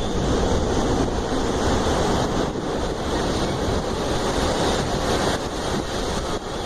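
Steady rushing roar of wind, buffeting the microphone.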